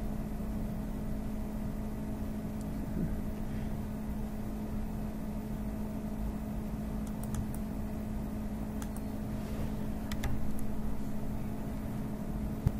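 Steady low machine hum with a few faint, brief clicks from a computer mouse about halfway through and again near the end.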